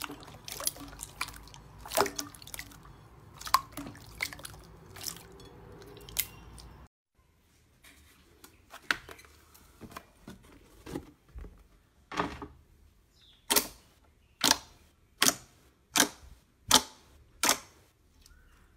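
Hands squeezing and pressing clear slime, making a string of sharp wet clicks and pops. In the second half a run of louder pops comes at an even pace, a little under one a second.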